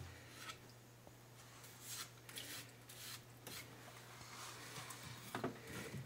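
Hand tool scraping and rubbing inside a sump pump pit crusted with calcified mineral deposits: quiet, irregular scraping strokes.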